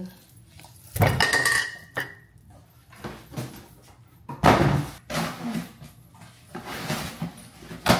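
Packages being handled during an unboxing: four separate bursts of rustling and knocking, one with a brief squeak near the first.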